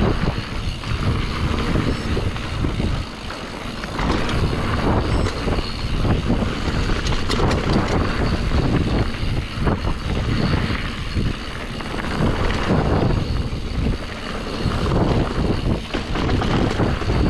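Mountain bike ridden fast down a dirt enduro trail: a loud, uneven rumble of wind on the microphone and tyres on dirt, with frequent knocks and rattles as the bike hits bumps and jumps.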